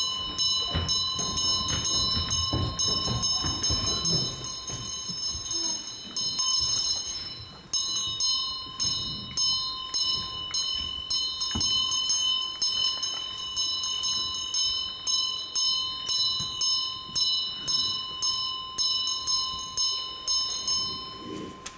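A bell rung over and over, its ringing tone held between strokes, with steady strikes about two a second through the latter half. It stops shortly before the end.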